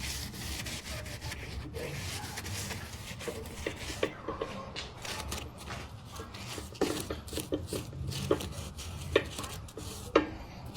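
Hand cleaning of an old studio light: steady scratchy rubbing, broken by many light knocks and taps.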